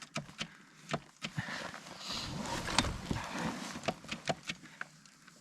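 Scattered irregular clicks and crunches of people moving about and handling a stalled snowbike on packed snow; no engine is running.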